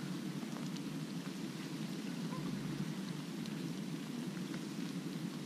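Steady rain falling on a lake's surface: an even hiss with faint scattered ticks of drops.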